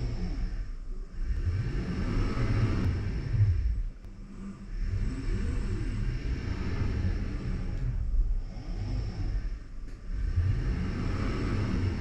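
Dobot Nova 2 robotic arm's joint motors whirring as it moves along a taught path, heard close up from a camera held in its gripper. The whir rises and falls in pitch with each move, in about five stretches with short lulls between.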